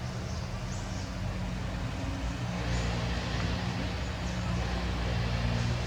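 A motor vehicle's engine running steadily with a low hum, growing louder about halfway through.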